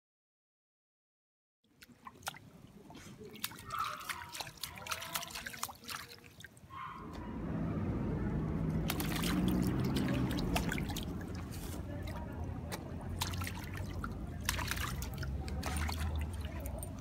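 Shallow water running and trickling through a narrow stone gutter channel, with splashes and drips as a dog wades in it. The water starts after a second or two of silence and grows louder and fuller from about seven seconds in.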